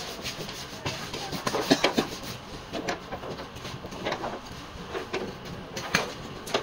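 Scattered knocks, clicks and clatter of tools and parts being handled, with a busier run of taps about one and a half to two seconds in.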